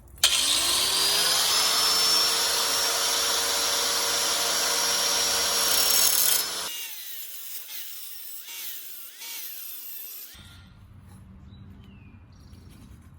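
Electric power tool spinning up with a rising whine, then cutting steel for about six seconds with a steady whine and hiss, and shutting off. Fainter, lighter sounds follow.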